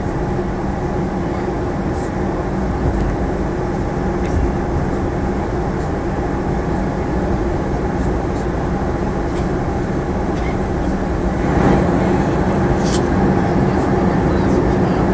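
Steady cabin noise inside a Boeing 737-800 in flight: the rush of airflow over the fuselage with the even hum of its CFM56-7B engines, holding a few steady tones. A faint click near the end.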